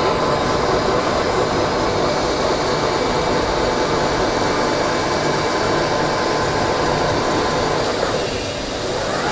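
Metal lathe running and cutting an M56 stud: a steady mechanical drone with a faint whine, easing briefly near the end.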